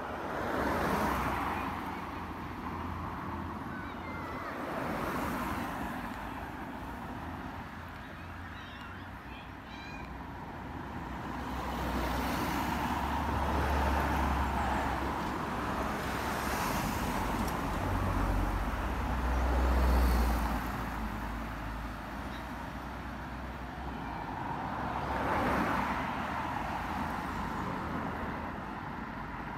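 Cars passing one after another on a road, each one's tyre and engine noise swelling and fading as it goes by, about half a dozen passes, with a low rumble underneath around the middle.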